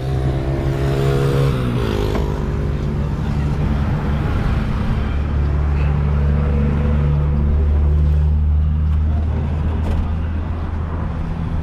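Road traffic and engine noise: a passing vehicle's engine note drops in pitch over the first two seconds, then a low engine drone swells, loudest a little after the middle, and eases near the end.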